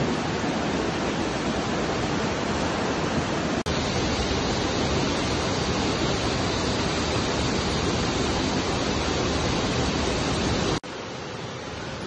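Steady rushing of water, a loud even roar, with a momentary break a few seconds in; near the end it cuts to a softer level of the same rush.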